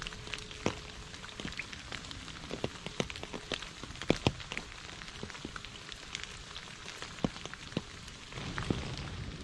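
Steady rain falling on a puddle and wet fallen leaves, with many distinct drops splashing among the patter. Near the end a low rumble swells in under the rain.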